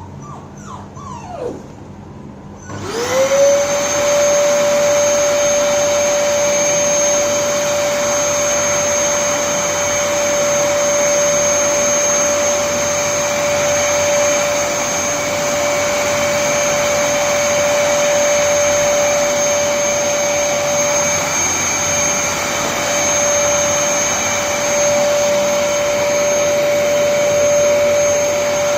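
A dog whimpers briefly, then about three seconds in a vacuum cleaner is switched on, its motor spinning up quickly to a steady high whine with a rushing of air.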